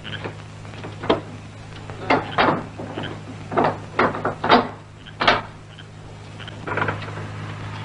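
Irregular wooden knocks and clatters, about eight over several seconds, as wooden louvred window shutters are unlatched and pushed open. A steady low hum lies under them.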